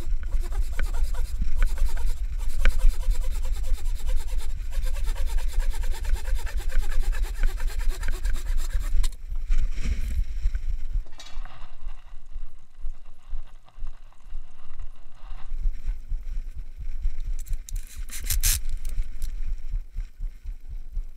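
Handsaw cutting through a piece of apple-tree wood in steady back-and-forth strokes for about the first nine seconds, then stopping. Quieter handling noise follows, with a short loud burst near the end.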